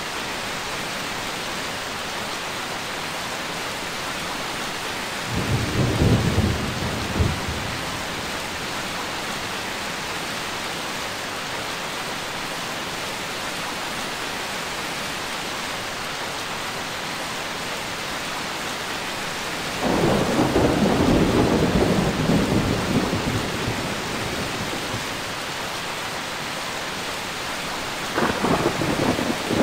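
Steady heavy rain with thunder rumbling three times: a short rumble about a fifth of the way in, a longer rolling rumble past the middle that fades, and another starting near the end.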